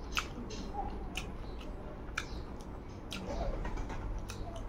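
Close-miked eating sounds: a person chewing a mouthful of rice while mixing rice with the fingers on a plate, with sharp clicks about once a second.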